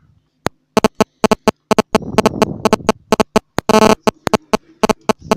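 Peterson bogey rake being worked in and out of a Union pin-tumbler cylinder lock under tension: a fast, irregular run of sharp metallic clicks as the rake strikes the pins. The clicks begin about half a second in and bunch up around four seconds in.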